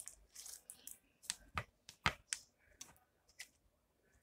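Slime being squeezed and worked between the fingers, giving faint, irregular sharp clicks and pops, about two or three a second.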